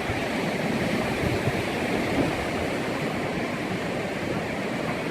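Ocean surf washing steadily on the shore below, a continuous rushing noise.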